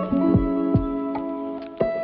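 Background music: sustained notes and a guitar over a steady beat, a low kick drum about every 0.4 s.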